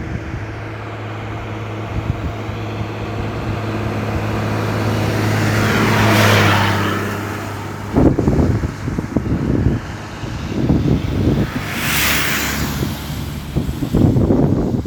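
Road traffic: a motor vehicle with a steady low engine hum approaches and passes close about six seconds in, and another vehicle rushes past about twelve seconds in, with rough gusty noise on the microphone in the second half.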